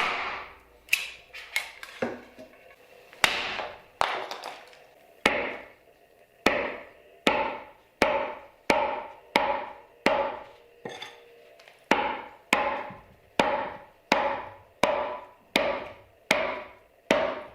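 Meat cleaver chopping over and over: a few uneven strikes at first, then a steady chop about every 0.7 seconds, each ringing briefly.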